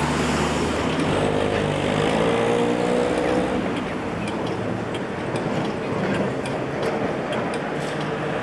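W class electric tram running along its track: a steady low hum with a whine that rises and then holds for a couple of seconds about a second in, and scattered light clicks later.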